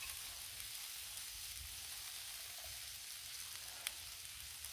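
Shrimp sizzling in vegetable oil on a Blackstone flat-top griddle, a steady hiss. A single small click sounds about four seconds in.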